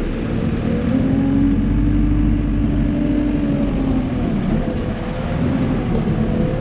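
Farm tractor engine running steadily under load, its pitch drifting slightly up and down.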